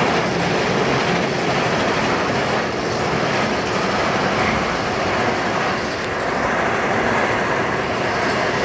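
Titan roller coaster train rattling steadily on its track as it is hauled up the lift hill.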